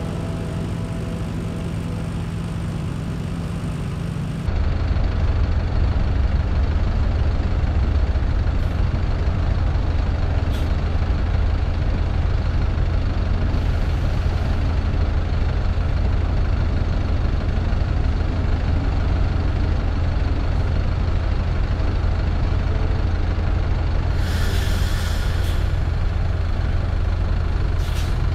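Motorcycle and city bus engines idling at a standstill, a steady low rumble that gets suddenly louder about four seconds in. Around three-quarters of the way through there is a short hiss of air brakes.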